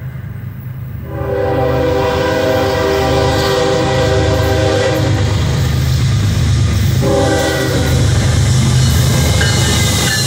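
Multi-tone air horn of a Norfolk Southern freight train's lead diesel locomotive as the train approaches: a long blast starting about a second in, then a shorter blast about seven seconds in. Under both runs the steady low rumble of the diesel locomotives.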